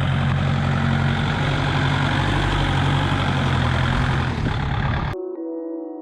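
Kubota compact tractor loader's diesel engine running steadily while spreading driveway gravel. About five seconds in it cuts off abruptly and soft piano music begins.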